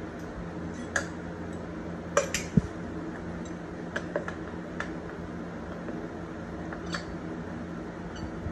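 Metal clamps being handled and tightened: about eight sharp clicks, clinks and knocks at uneven intervals, over a steady low hum.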